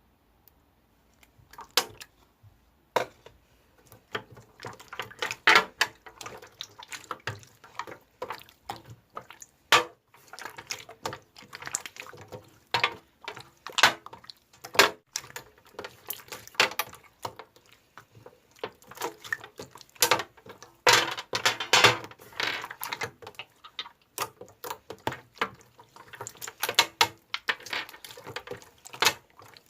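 Slime being squished and worked by hand, making irregular wet clicks, pops and crackles that start about a second and a half in.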